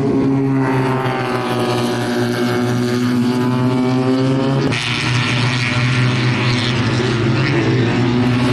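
Two-cylinder engines of small Fiat 500-type race cars running hard on track, a steady buzzing engine note. The sound changes abruptly a little under five seconds in.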